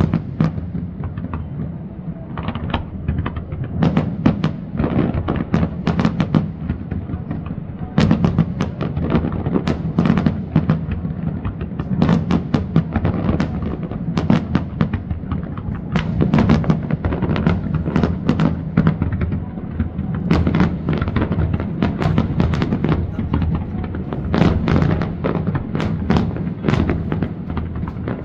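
Aerial fireworks display: shells bursting in rapid, overlapping succession, many sharp bangs a second over a continuous low rumble.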